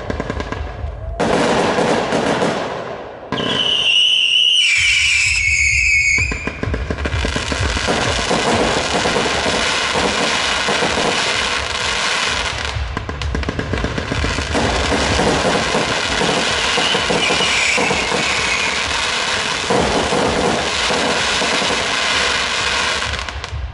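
Fireworks display: dense, continuous crackling from glittering crackle bursts, with a falling whistle about four to six seconds in.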